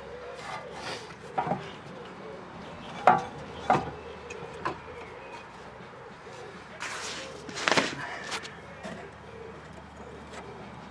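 Several sharp metallic knocks and clunks, with a short scraping rattle about seven seconds in, as a car's rear suspension strut and its fittings are handled and worked loose.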